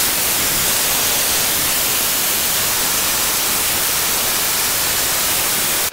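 Compressed air from a Craftsman 6-gallon pancake compressor tank hissing steadily out through the air hose, bleeding the tank pressure down to 20 PSI before storage.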